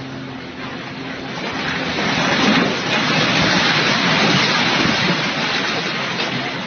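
A loud rushing noise that swells about two seconds in and eases near the end, over a faint steady low engine hum.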